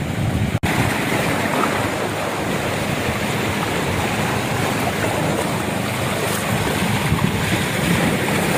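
Sea surf washing against shoreline rocks: a steady rushing noise, with wind on the microphone. The sound drops out for an instant under a second in.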